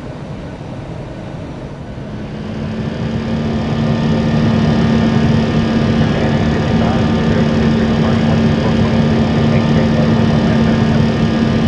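Jet airliner engines spooling up. A steady hum joins the engine noise about two seconds in, and the noise rises over the next two seconds, then holds steady at high power.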